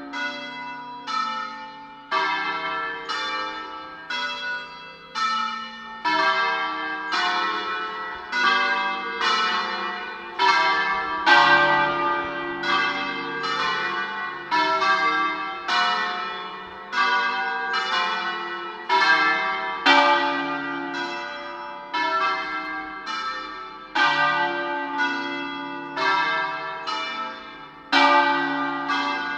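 Church tower bells ringing in sequence: several bells of different pitch struck one after another, roughly once a second, each note ringing on and fading under the next.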